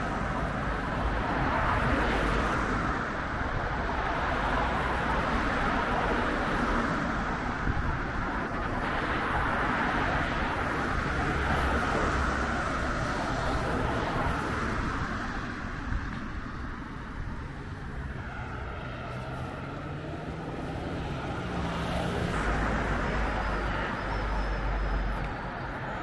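Road traffic on a city street: cars driving past one after another, swelling and fading as each goes by.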